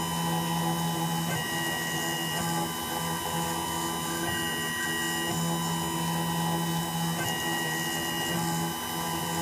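Small CNC milling machine cutting on an iPhone logic board: a steady motor hum, with a higher stepper-motor tone that comes and goes about every three seconds as the cutter sweeps back and forth across the chip area.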